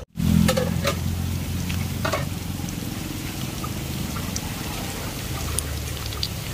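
Fish frying in a hot pan of oil, a steady sizzle with scattered crackles and pops.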